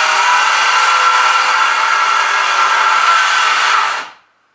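Electric power saw running and cutting through the wooden boards of a cabin door, a steady motor whine with a rasping cut, stopping suddenly about four seconds in.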